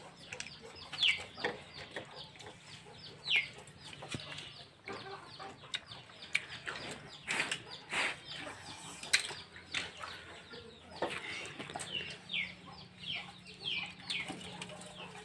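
Chickens clucking and peeping, with many short falling chirps repeated all through. A few sharp clicks or knocks sound over them, the loudest about nine seconds in.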